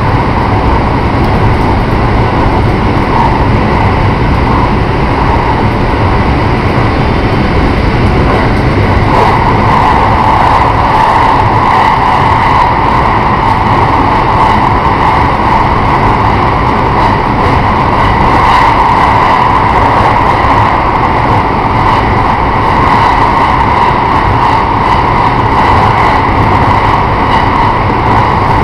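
JR Shikoku 5000 series electric train running at speed, heard from inside the leading car: a steady rumble of wheels on rail, with a band of higher noise that grows louder about nine seconds in.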